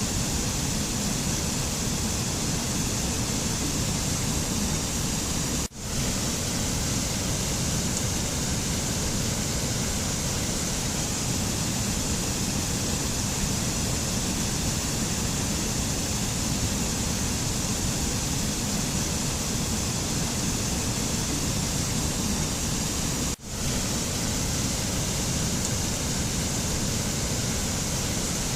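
Steady, even rushing noise of a mountain nature ambience, like falling water or wind. It cuts out for an instant twice, about 6 seconds in and about 23 seconds in, as at the joins of a looped recording.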